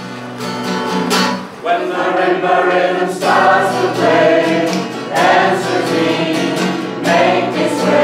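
A group of people singing a song together to an acoustic guitar, in long sung phrases.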